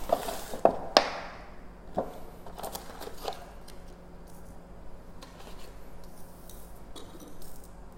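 Handling noises: scattered clicks, knocks and rustles as parts and their packaging are picked up and moved about, the sharpest knocks in the first second or so.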